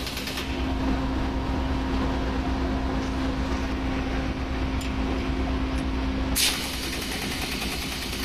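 Steady machinery hum with a constant tone. About six seconds in, a pneumatic impact wrench rattles for about two seconds on a nut of the scrubber tower inspection door flange, with a short burst of it right at the start.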